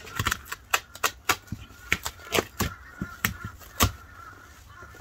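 Plastic packaging being pulled off a new lawn mower in its cardboard box, in a string of sharp, irregular crackles and snaps.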